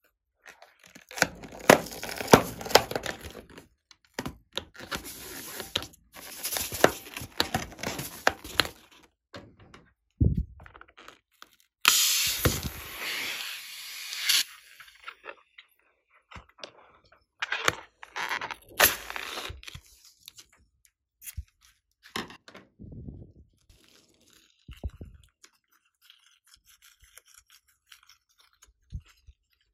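Latex modelling balloons being rubbed, scraped and cut with scissors: irregular bursts of rubbing and scraping noise, a loud rushing burst of about two seconds near the middle, and a few soft thuds.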